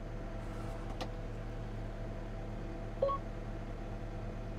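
Cat 315 hydraulic excavator's diesel engine idling steadily, heard from inside the cab. There is a single click about a second in and a short beep from the cab display about three seconds in, as the payload weighing mode is switched on.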